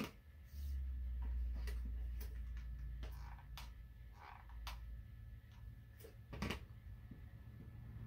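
Scattered light clicks and taps as hands handle craft pieces on a tabletop, over a low rumble through the first half.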